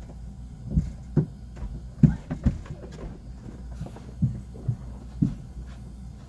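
Irregular dull thumps and knocks, about eight in a few seconds with the most in a quick cluster around two seconds in, over a steady low hum.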